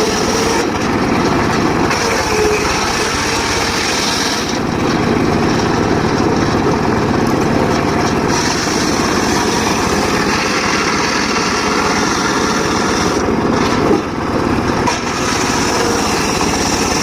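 Homemade circular saw running steadily while sawing mahogany. The high part of the sound fades and comes back several times, and there is a brief dip about two-thirds of the way through.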